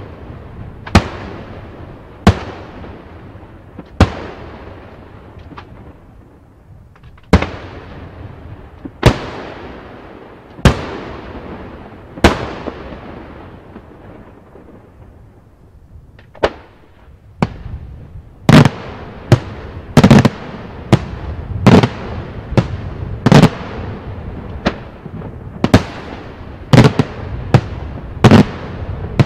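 Daytime aerial firework shells bursting in the sky. Sharp bangs, each with a fading tail, come one every second or two, then after a short lull come faster, about two a second, over the last ten seconds.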